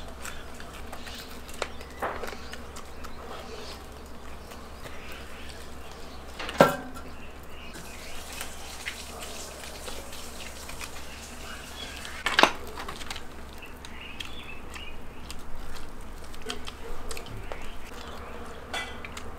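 Chewing and gnawing roasted lamb off the rib bones, with small wet clicks throughout. Two sharp knocks with a short ring come about six and twelve seconds in.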